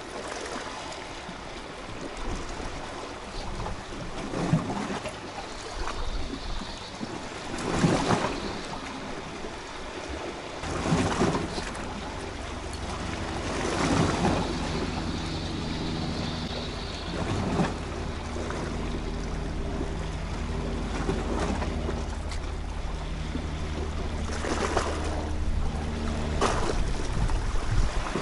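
Sea washing and splashing against shoreline rocks in surges every few seconds, with wind on the microphone. From about ten seconds in, a low steady drone joins underneath and fades out near the end.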